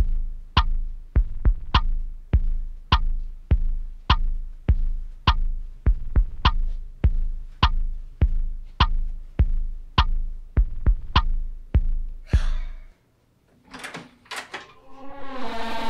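Film score of deep, heartbeat-like thuds, a bit under two a second with some doubled, that cut off suddenly about 13 seconds in. A few short clicks and rattles of a door lever handle follow, then a rising swell into a steady droning chord near the end.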